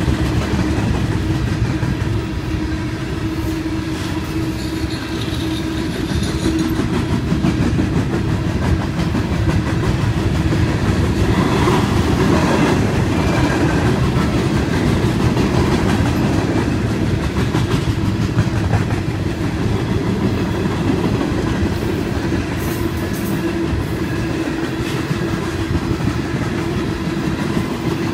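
Herzog ballast gondola cars of a freight train rolling past at steady speed, their steel wheels rumbling and clicking on the rails, with a steady low hum underneath.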